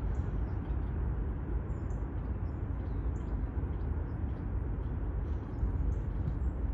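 Outdoor ambience: a steady, uneven low rumble, with faint high bird chirps scattered through it.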